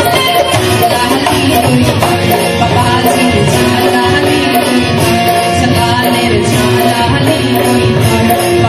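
Live band music played through a PA: a woman sings into a microphone over keyboards and a steady beat.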